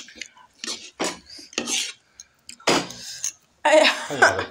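Spoons and forks scraping and clinking against plates and bowls during a meal, in several short bursts. A brief voice is heard near the end.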